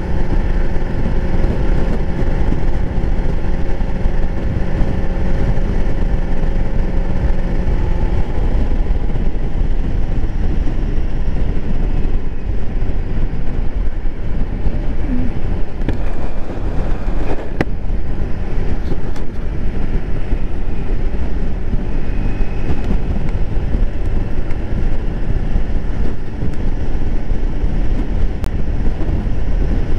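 Honda Navi's small air-cooled single-cylinder engine running while the bike rides along, mixed with heavy wind rumble on the microphone. The engine note drops a little about eight seconds in.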